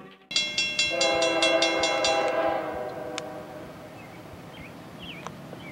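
Locomotive multi-chime air horn sounding one chord that starts abruptly, holds for about two seconds and fades away. Faint bird chirps follow near the end.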